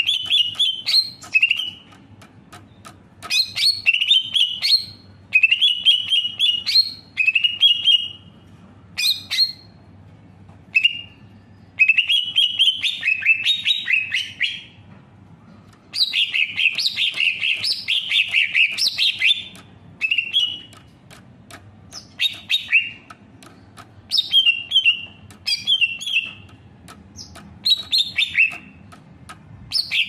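Caged greater green leafbird singing: short bursts of quick, chirping whistled phrases every second or two, with a longer, fuller run of song about halfway through.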